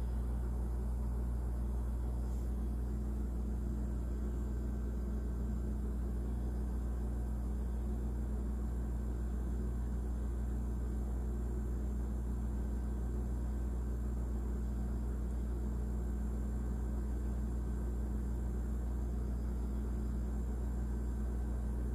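A steady low hum with a faint hiss, unchanging throughout, with no other sounds.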